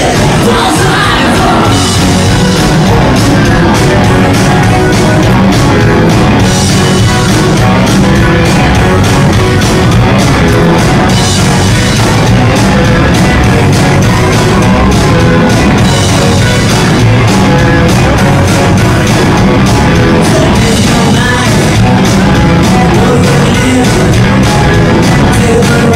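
Live rock band playing loudly: drums, electric guitar, bass and keyboards with singing over them.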